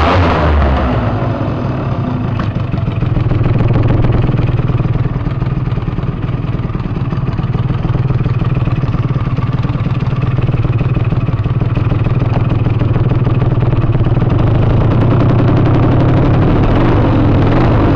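Aprilia SR 50 WWW scooter's 50cc two-stroke single-cylinder engine running through a LeoVince RR expansion-chamber exhaust, fuller and louder for the first second, then running steadily at an even speed.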